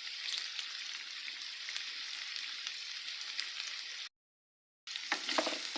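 Carrots sizzling in a hot pot: a steady frying hiss with small crackles. It cuts out completely for under a second near the end, then comes back with a few sharper knocks, like a spoon stirring against the pot.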